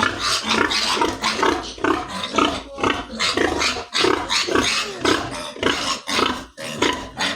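Pigs squealing and grunting over and over, loud harsh calls coming several times a second.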